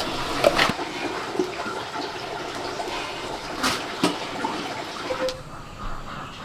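Rushing, splashing water with a few knocks, dying down about five seconds in.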